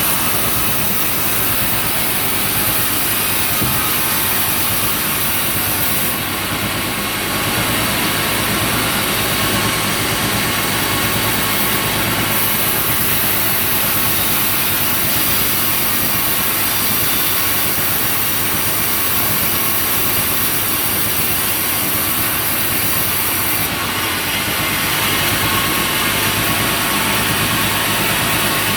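Engine-driven sawmill running steadily, a constant engine drone under a high hiss that grows and fades a few times.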